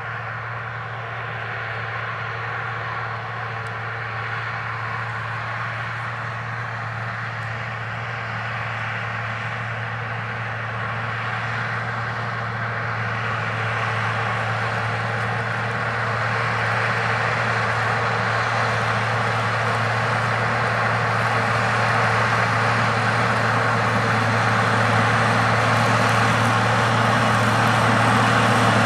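Tractor engine running steadily under load while pulling a strip-till cultivator, with a low, even hum that grows gradually louder as the tractor draws nearer.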